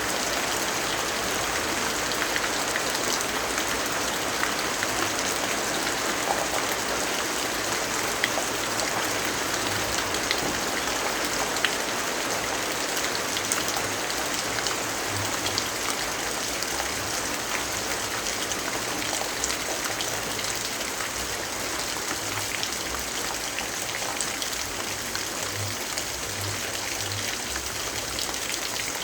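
Steady rain: an even, dense hiss of rainfall with many small sharp drop ticks scattered through it.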